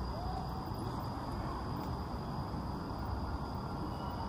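Steady outdoor park ambience: an even background rumble with a thin, unchanging high-pitched whine over it.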